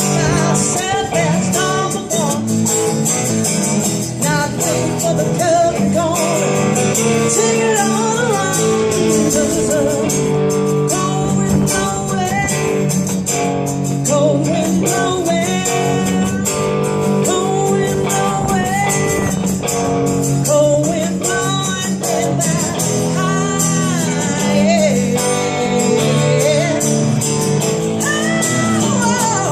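Live blues-rock duo playing an instrumental passage of the song on guitars: steady chords underneath, with lead notes bending and sliding in pitch above them.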